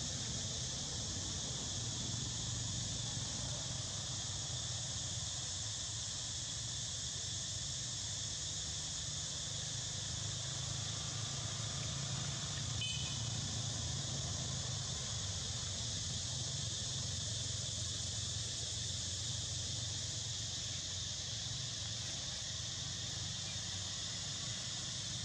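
Steady outdoor insect chorus, a continuous high shrill drone, over a low steady rumble.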